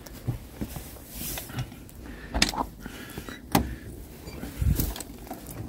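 Side entry door of an ambulance's patient box being unlatched and swung open: three sharp clunks from the latch and door, about a second apart.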